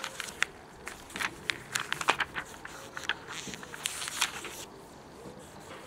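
Thin catalogue pages being leafed through and flicked by hand: a quick run of crisp paper flicks and rustles that eases off near the end.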